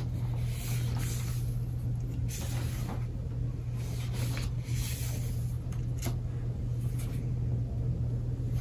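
Paper pages of a small stapled zine being turned and rustled by hand, a few short soft rustles over a steady low hum.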